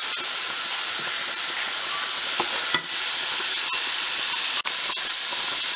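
Ground venison and diced onion sizzling steadily as they brown in a nonstick frying pan, stirred and scraped with a wooden spatula. A single sharp click a little under three seconds in.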